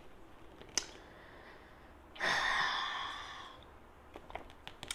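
A woman sighs once, a long breathy exhale about two seconds in that fades away over about a second and a half, with a small click shortly before it.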